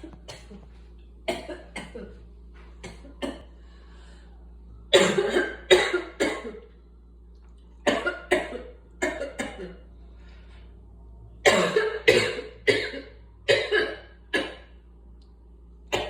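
A person coughing from asthma in about nine short fits of several coughs each, the loudest fits about five and twelve seconds in. A steady low hum runs underneath.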